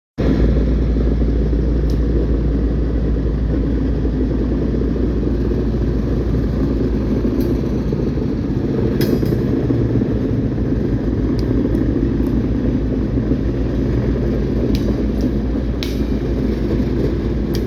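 Loaded coal train running by, a steady low rumble with a few short, sharp clanks and squeaks here and there.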